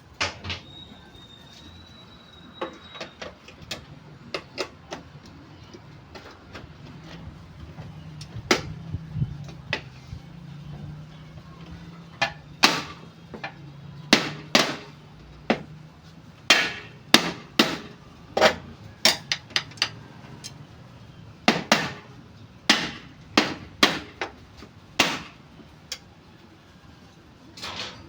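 Irregular hammer blows and knocks, single strikes and quick runs with pauses between, coming thicker and louder in the second half. A low hum sits underneath through the middle stretch.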